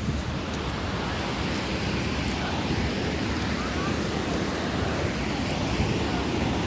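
Steady rush of ocean surf mixed with wind noise on the microphone.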